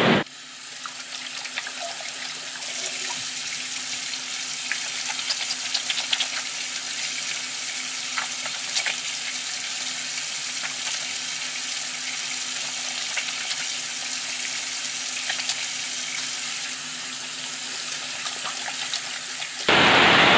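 Steady hiss of heavy rain falling, with scattered small drip-like ticks; it eases slightly a few seconds before the end.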